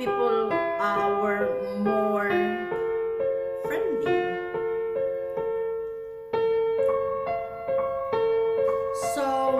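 Background piano music: a gentle melody of single notes, each struck and left to ring.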